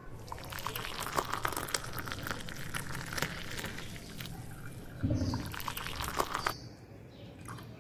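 Coffee pouring from a thermos jug into a porcelain cup, a steady liquid splashing that stops near the end. A brief low bump sounds about five seconds in.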